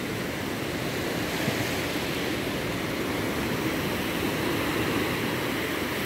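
Sea surf breaking and washing up onto a sandy beach among rocks: a steady rushing noise.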